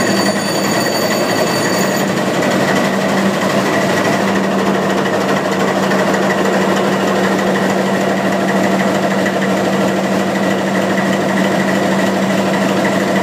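General Electric diesel engine of a CC 206 locomotive running steadily just after start-up, a loud, even drone with a strong low hum.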